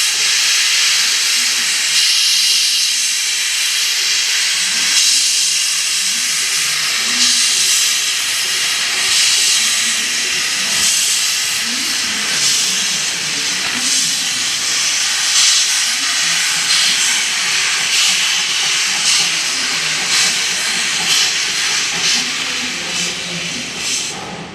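C57-class steam locomotive blowing off steam: a loud, steady hiss that lasts the whole time and cuts off suddenly at the very end.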